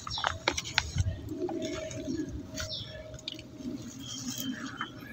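Gloved hand scratching and loosening soil in a plastic polybag, giving a few short crackles and rustles. A bird calls steadily and low in the background.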